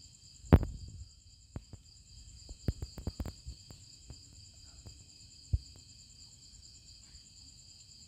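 Crickets chirring steadily in a high, pulsing drone, with scattered sharp clicks and knocks close by: the loudest about half a second in, a cluster around three seconds in and one more past five seconds.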